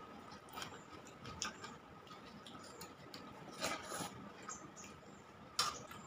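Eating by hand: scattered small clicks of chewing and lip smacks, and fingers mixing rice and dal on a steel plate. There is a cluster of clicks a little past the middle and the sharpest click near the end, over a faint steady high whine.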